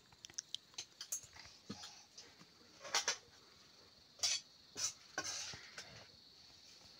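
Steel spoons, plates and pots clinking and scraping as food is served. First comes a run of light taps, then several louder clinks and a short scrape about halfway through.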